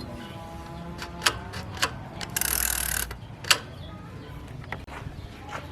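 Bicycle parts being worked on by hand: scattered sharp metallic clicks and knocks, with a short loud hiss about two and a half seconds in.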